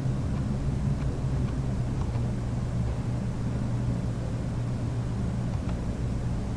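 Steady low background hum with a few faint clicks now and then: mouse clicks typing on an on-screen keyboard.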